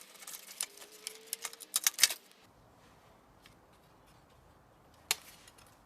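Quick, irregular clicks and clinks of small metal and plastic parts from a VCR's mechanism being worked on by hand. They stop about two seconds in, and one more click comes near the end.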